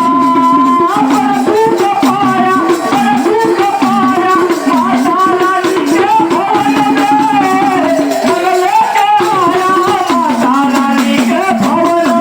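A devotional song to Mahadev (Lord Shiva), sung with a wavering melodic line over steady hand percussion of rattles and drums.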